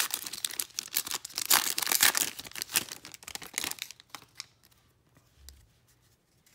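Plastic wrapper of a 2021 Playoff football card pack being torn open and crinkled, a dense crackle for about four seconds. It then dies down to a few faint handling rustles as the cards are taken out.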